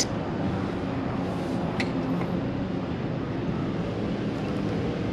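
Steady low engine-like hum of vehicles on the street, with two sharp clicks about two seconds apart from a plastic takeout container being handled.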